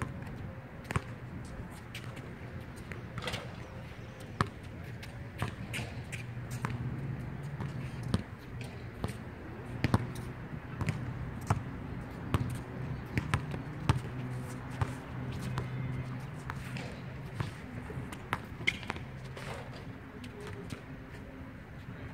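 Basketball bouncing on a hard outdoor court as a player dribbles, a series of sharp thuds at uneven intervals, over a steady low hum.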